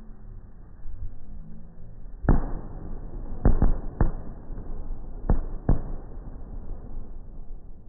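Aerial fireworks booming: six sharp bangs over a steady low rumble, starting about two seconds in, some of them in quick pairs.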